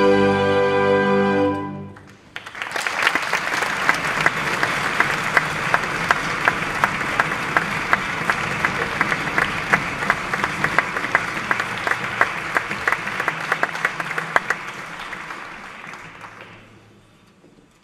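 An orchestra's closing chord of the duet ends about two seconds in. Then an audience applauds with dense, steady clapping that fades away near the end.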